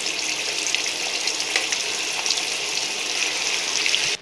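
Marinated chicken pieces deep-frying in hot oil in a kadai: a steady, loud sizzle peppered with many small pops and crackles.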